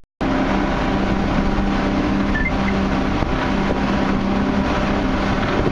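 Motorboat engine running at a steady speed under way, with wind and water noise; it starts abruptly just after the beginning.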